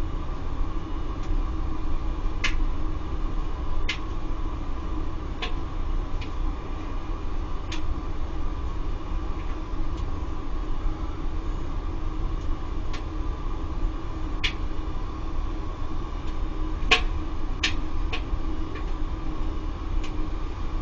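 Laddomat charging unit's circulation pump running with a steady hum, while sharp ticks sound at irregular moments, about a dozen in all, the loudest a little before the end.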